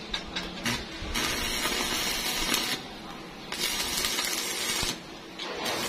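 Three bursts of hissing spray, each about a second and a half long with short pauses between, after a few light clicks in the first second.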